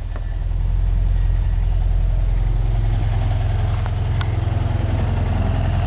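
1978 Volkswagen bus's 2-litre fuel-injected, air-cooled engine idling steadily, a high-mileage engine with its usual sound. Two faint clicks come about four seconds in.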